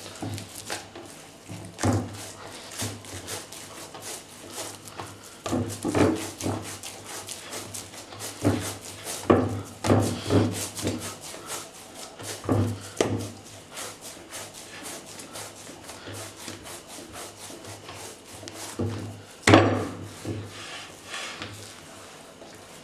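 Pizza dough being kneaded by hand in a wide terracotta dish: uneven pushes and thumps of the dough against the clay, with rubbing between them. The loudest thump comes near the end.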